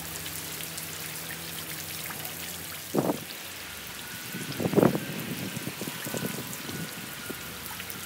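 Rain falling onto standing water on the ground: a steady hiss and patter of drops, with a few louder thumps about three and five seconds in.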